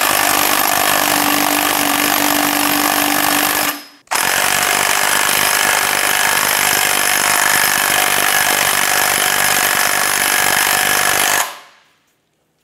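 Cordless impact wrench with a 15/16-inch socket hammering the nut on a new upper control arm bushing, driving it down until it bottoms out. It runs in two long stretches with a brief pause about four seconds in, then stops shortly before the end.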